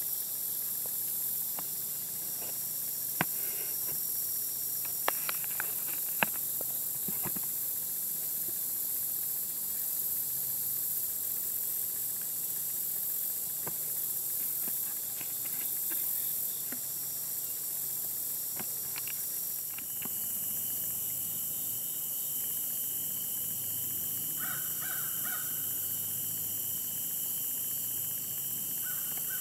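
Crows cawing in the woods, briefly about 25 s in and again at the end, over a steady high insect hiss. A few sharp clicks come early on.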